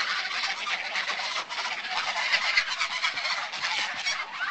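A flock of geese honking together, many short calls overlapping into a continuous noisy clamour.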